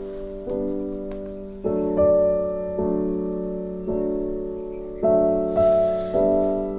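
Background music: slow piano chords struck about once a second, each ringing and fading before the next.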